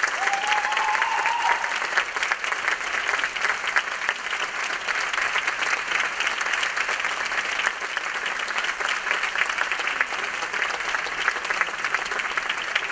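Theatre audience applauding steadily, with a short rising cheer from one voice in the first second or two.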